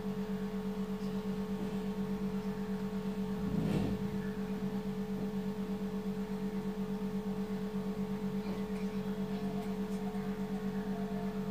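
A steady low electrical hum with a fast, regular pulse, and a single knock about three and a half seconds in.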